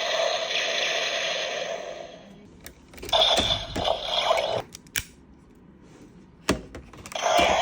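DX Amazons Driver toy belt: an electronic sound effect from its small speaker fades out, then the plastic grip is clicked and turned several times, setting off more short electronic sound bursts.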